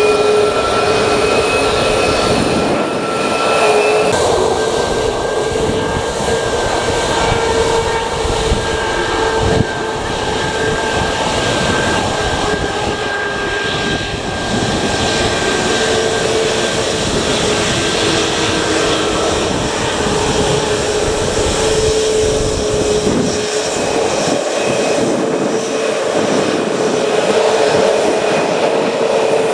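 Boeing 737 MAX 8's CFM LEAP-1B turbofans at low power as the airliner taxis slowly along the runway: a steady jet whine with a few held tones.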